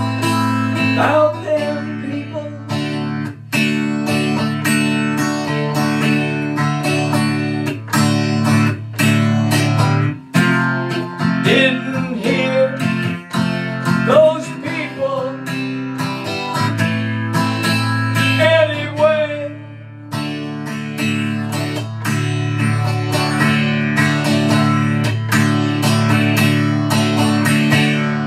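Taylor acoustic guitar strummed in a steady rhythm. A man's voice sings long, wavering notes over it through the middle stretch.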